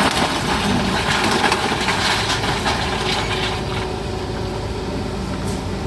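A heavy machine's engine runs steadily while timber cracks and crunches as the house is demolished. The crunching is louder in the first half and eases off after about three and a half seconds.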